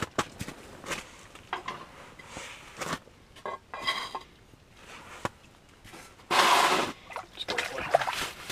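Handling noises: scattered clicks, knocks and rustling, with one loud rushing noise of under a second a little after six seconds in.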